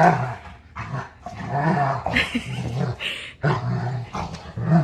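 Adult golden retriever play-growling in a string of deep, rumbling growls with short breaks between them, while rough-housing with a puppy. The growling sounds ferocious but is play.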